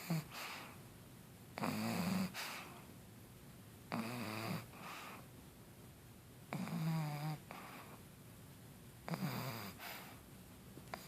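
Pug snoring: about every two and a half seconds a loud pitched snore lasting most of a second, each followed by a fainter, shorter breath, five snores in all.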